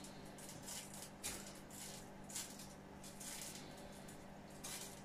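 Faint, brief rustling and handling noises, several short ones spaced about half a second to a second apart, over a low steady hum.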